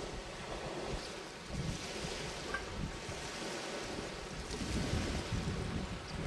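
Wind buffeting the microphone, a gusty low rumble over a steady rushing noise, with a few faint ticks.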